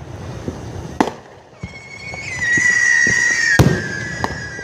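Fireworks going off: sharp bangs about a second in and again past three and a half seconds. A long, high, nearly steady whistle from a whistling firework starts about two seconds in.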